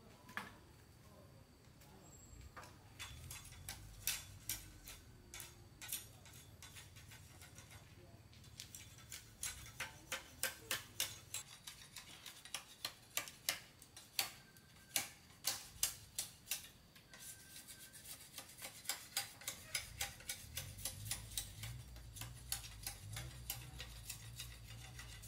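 A long run of sharp, light clicks and taps at an uneven pace, a few a second, over a low hum.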